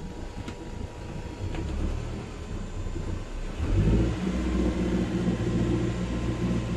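A 1970 Freeman 23 motor cruiser's inboard engine running just after starting. A little under four seconds in the throttle is opened and the engine picks up to a steady, faster, smooth run.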